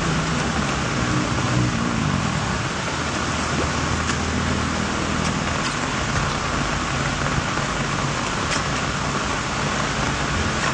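Rainwater flowing steadily into a street drain: a continuous rushing hiss with a few faint drip ticks, over a low hum.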